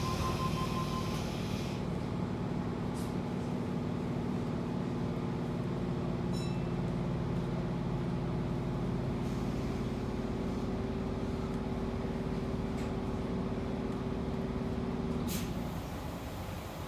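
Inside an electric suburban train carriage after the doors close: a steady hum and rumble from the train's equipment, with a high tone that ends about a second in and a few light clicks. A sharper click comes near the end, and the hum then drops away.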